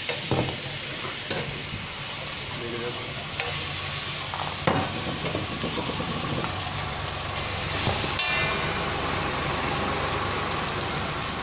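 Spiced potatoes sizzling in oil on a large flat tawa griddle, with a steady frying hiss. A spatula clacks and scrapes against the griddle now and then, about five sharp knocks spread through.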